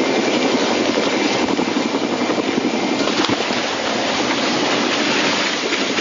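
Large helicopter's rotors and engines, a loud, steady rushing din with a rapid flicker, as the helicopter comes down low among trees and crashes in a cloud of dust.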